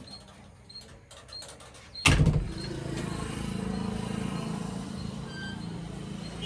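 Heavy diesel engine comes in suddenly about two seconds in and then runs steadily. Before it, only faint clicks and short high chirps.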